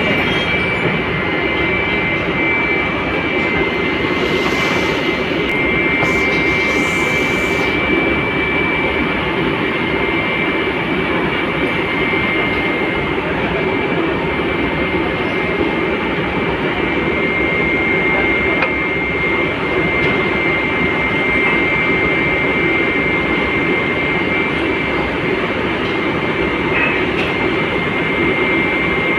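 Steady loud drone of foundry machinery, a constant noisy rumble with a thin high whine held over it. Two brief hissing bursts come about four and seven seconds in.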